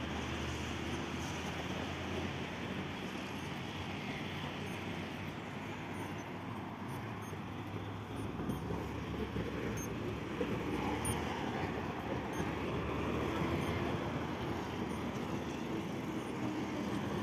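Road traffic going by: a steady rush of passing cars, with a low engine hum in the first half that fades about eight seconds in.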